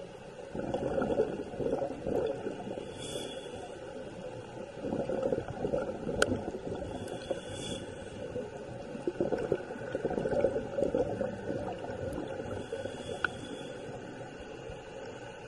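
Scuba diver's regulator breathing heard underwater: bursts of exhaled bubbles gurgling every few seconds, with a short high hiss of inhalation between them.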